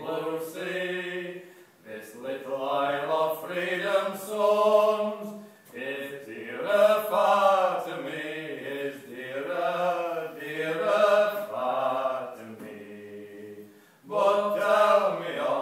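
Two men singing an old English song unaccompanied, in long held phrases with short breaths between them and a longer pause about two-thirds of the way through.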